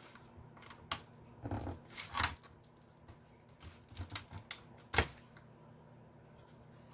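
The metal RF shield on a Commodore 64 circuit board is being worked loose, giving a series of sharp metallic clicks and short scrapes. The loudest clicks come about two and five seconds in.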